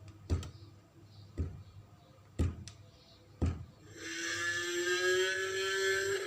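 Brachiosaurus sound effect: four heavy thuds about a second apart, then about four seconds in a loud, long drawn-out call with a slowly rising pitch that runs to the end.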